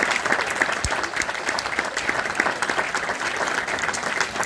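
Audience applauding: many hands clapping at once, dense and steady.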